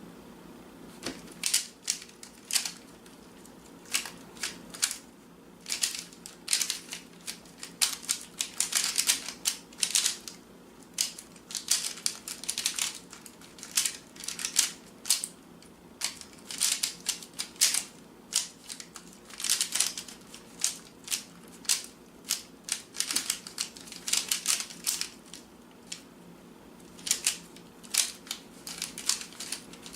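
A Rubik's Cube being turned by hand: irregular runs of sharp plastic clicks with short pauses between them.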